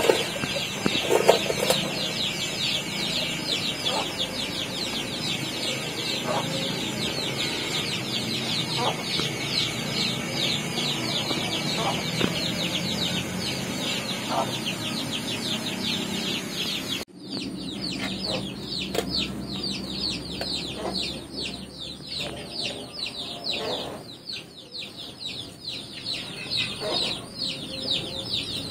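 Many chicks peeping continuously in fast, high, falling chirps, with occasional lower clucks.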